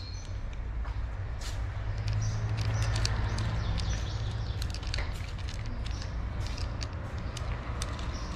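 Cats crunching dry kibble from bowls: a quick, irregular scatter of sharp clicks. Under it runs a steady low rumble, strongest a couple of seconds in.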